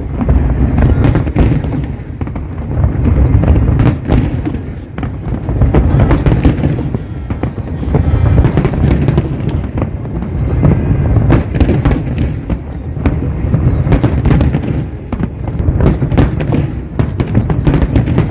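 A large fireworks display going off in rapid succession: many sharp bangs and crackles over a continuous deep rumble of shell bursts.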